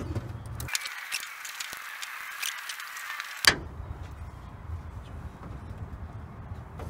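Light clicks and handling noise as a rubber washer-fluid hose is worked out of the plastic retaining clips on the underside of a 2009 Toyota Camry's hood, over a low steady rumble. One sharp click comes about halfway through.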